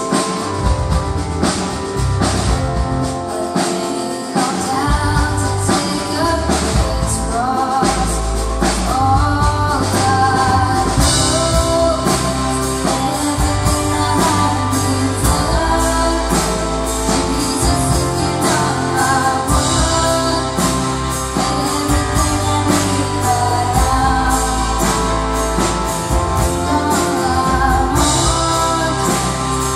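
A live worship band playing a contemporary worship song: singing over acoustic guitar and a drum kit keeping a steady beat. The drums and cymbals get fuller about eleven seconds in.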